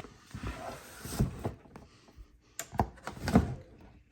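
Irregular knocks, clicks and scrapes of hands handling gear: a few sharp knocks, the loudest a little over three seconds in.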